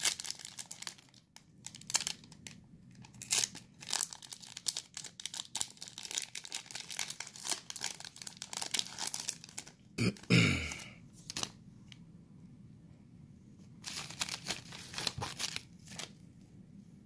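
Foil trading-card pack being torn open by hand, its metallic wrapper crackling and crinkling in irregular bursts. A short, louder noise comes about ten seconds in, and more crinkling follows near the end.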